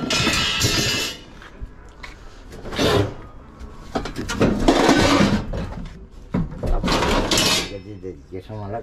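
Scrap metal pieces being slid and shifted across a van's metal floor: about four separate bouts of scraping and clattering with short pauses between.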